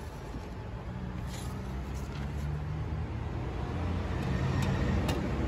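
A motor vehicle's engine running, a steady low rumble that slowly grows louder, with a few light clicks and rustles of packing paper as a clutch is handled in its cardboard box.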